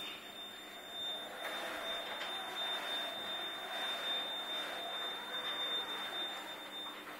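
A small four-wheeled robot's electric drive motors and wheels running as it drives across a hard corridor floor: a steady machine whir that swells about a second in, with a thin high-pitched whine above it.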